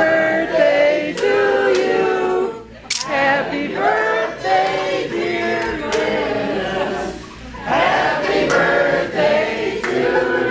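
A group of people singing a song together in long held phrases, pausing briefly twice between lines.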